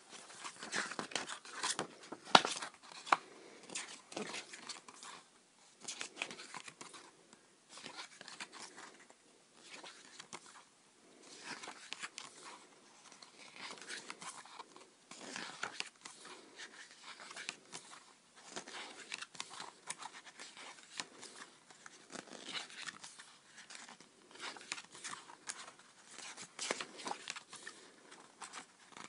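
Hands opening and handling a boxed CD album: plastic wrap crinkling and tearing, and paper and card rustling, with many small irregular clicks and taps.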